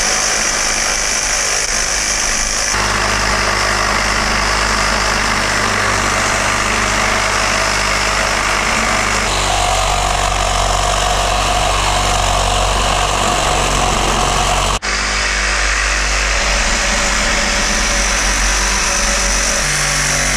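Cordless reciprocating saw running steadily as its blade cuts down between the sections of a cast iron radiator, with a momentary break about fifteen seconds in.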